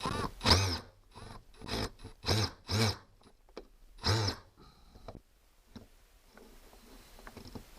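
A 1.5-inch drywall screw being turned by screwdriver through a PVC pipe holder into the ceiling, giving a series of short squeaks and creaks at irregular intervals, one per turn, loudest in the first half.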